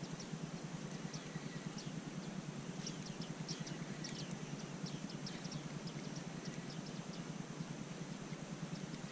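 Small birds giving short, high, falling chirps, busiest around the middle, over a steady low rumble.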